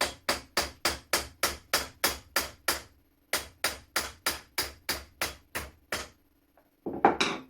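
Hammer striking a makeshift metal drift to knock a rusted, stuck part out of an old flintlock shotgun: steady blows about three a second, in two runs with a brief pause between. Near the end comes a single louder clatter.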